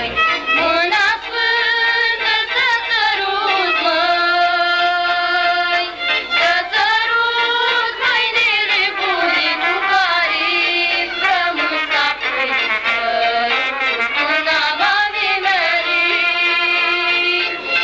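A high solo voice singing a slow, ornamented Romanian folk melody, holding long notes and gliding between pitches.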